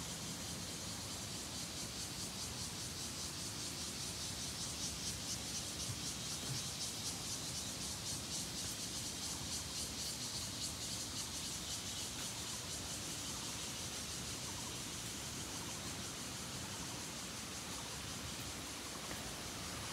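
A chorus of cicadas buzzing in rapid pulses, swelling in the middle and fading toward the end.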